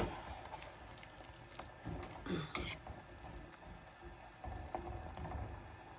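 Metal ladle stirring boiling sour curry in a stainless-steel saucepan, with a knock right at the start and a short, sharp clink of the ladle against the pot about two and a half seconds in.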